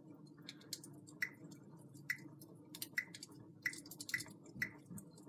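Faint, irregular crackling and popping of a fire playing on a TV, a dozen or so small pops over a low steady hum.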